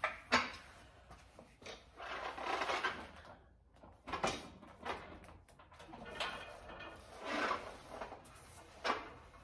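Plate-loaded cable pulldown machine worked through slow reps under a heavy load: the cable rasps through its pulleys and the weight plates knock, about once every four seconds.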